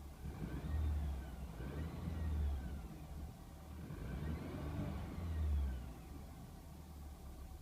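A BMW F30 328i's turbocharged 2.0-litre four-cylinder engine is revved several times. Each rev brings a high whistle that rises and falls in pitch along with the engine.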